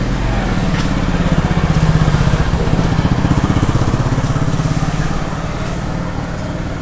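An engine running nearby with a steady low drone that grows louder over the first couple of seconds, holds, then slowly fades.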